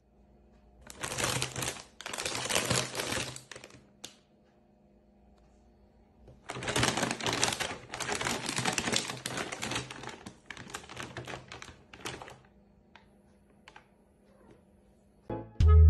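Plastic packaging crinkling and rustling as it is handled, in two long bouts of dense crackle, the second the longer, followed by a few faint ticks.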